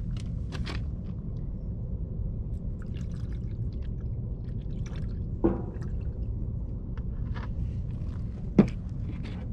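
Liquid being poured into a bird feeder, with small clicks and drips over a steady low rumble. Two short, sharp, louder sounds stand out, about five and a half and eight and a half seconds in.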